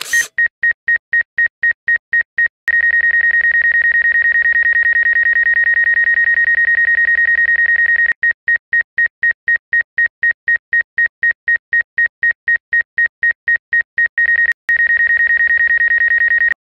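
DJI flight app's obstacle-sensing proximity alarm: a high electronic beep repeating about five times a second, twice going over into a continuous tone and back. It warns that an obstacle, here the pilot, is within a few metres of the hovering drone's sensors. It cuts off suddenly shortly before the end.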